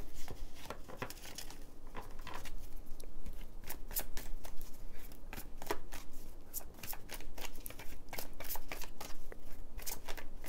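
A deck of tarot cards being shuffled by hand: a long run of quick papery clicks and flicks, coming thicker after the first few seconds.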